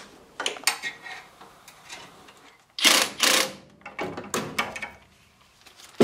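Small clicks and knocks of hands working a flame sensor back into its mount inside a gas furnace, with two louder scraping rustles about three seconds in.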